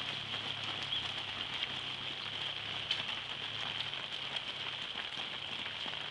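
Steady rain falling, with scattered drops tapping on an umbrella overhead.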